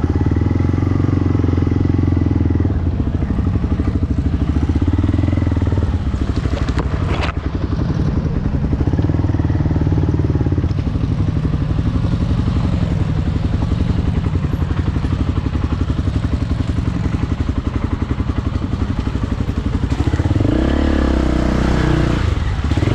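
Off-road vehicle engine running under load, its pitch rising and falling with the throttle. There is a sharp knock about seven seconds in, and a rev glides up near the end.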